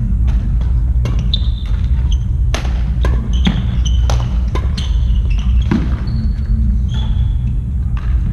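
Irregular hammer blows, a dozen or so sharp knocks, several of them leaving a brief high metallic ring. They sound over a steady low rumble.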